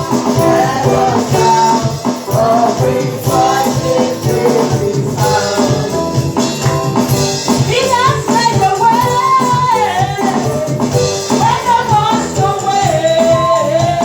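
Live praise-and-worship music: a voice singing a gliding melody over instrumental accompaniment with a steady beat.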